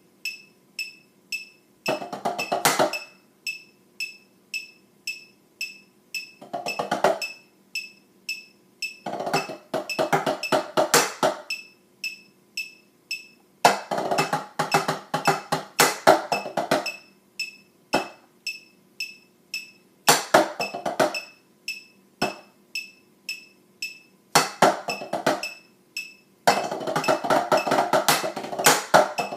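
Drumsticks striking a set of rubber practice pads laid out like marching tenor drums, playing a drumline cadence in several quick rhythmic passages separated by short rests. A steady metronome click, about two a second, keeps time throughout.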